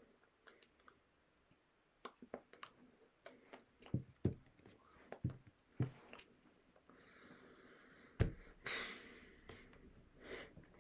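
Scattered soft knocks, taps and rustles of a person's hands moving and touching the body, with a few louder thumps in the middle and one sharp thump at about eight seconds, followed by an audible breath.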